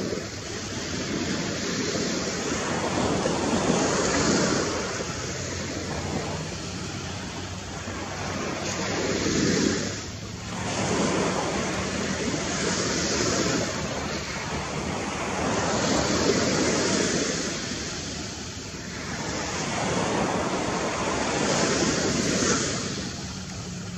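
Ocean surf breaking: a steady wash of noise that swells and fades every four to six seconds as waves come in.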